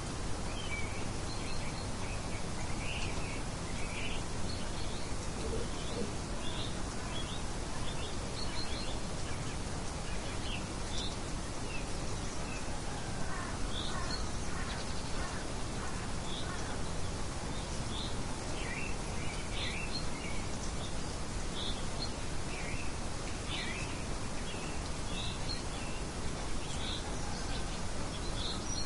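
Steady wind noise with many short bird chirps scattered throughout.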